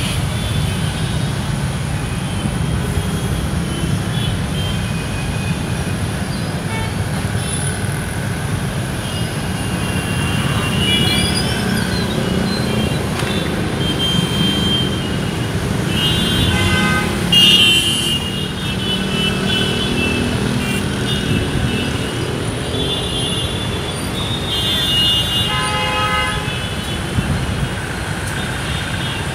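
Steady road-traffic rumble with vehicle horns tooting now and then, the loudest toot a little past halfway.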